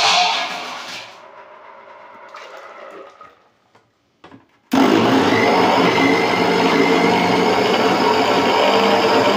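Electric kitchen mixer-grinder blending watermelon juice: it switches on abruptly about five seconds in and runs steadily at high speed with a whining motor hum, mixing in the sugar just added. Before that, a brief pour into the jar and some quieter handling.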